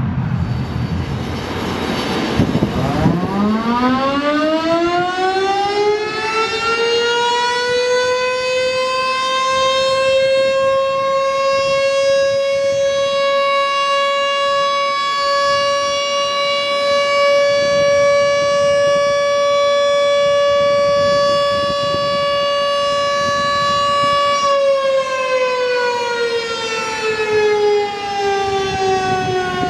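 Federal Signal STH-10 outdoor warning siren winding up from a low pitch about three seconds in to a steady high tone. It holds the tone for about fifteen seconds, then winds down with its pitch falling steadily to the end.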